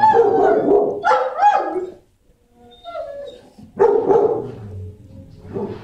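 Dogs barking in a shelter kennel area: a series of separate barks, loudest in the first two seconds and again about four seconds in.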